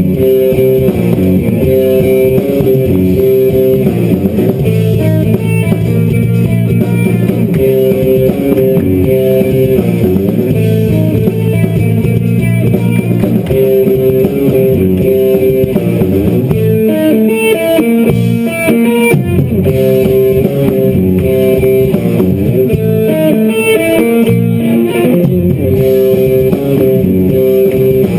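Guitar music: plucked electric guitar over bass, playing without a break.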